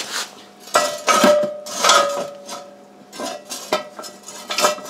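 Steel jack stand being adjusted: metal clinks and knocks from its column and locking handle, about six sharp strikes that each leave a short metallic ring.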